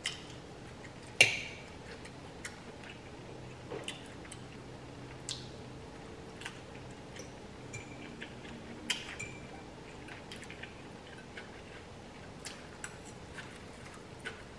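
A metal fork clinking and tapping against a glass bowl of noodles in scattered, irregular strokes, the loudest about a second in, with soft chewing between.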